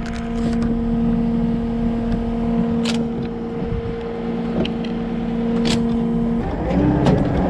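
Cat 257D track skid steer running at a steady engine speed with a constant hum. A few sharp knocks come at about 3 and 6 seconds. Near the end the engine note shifts and wavers as the machine is worked.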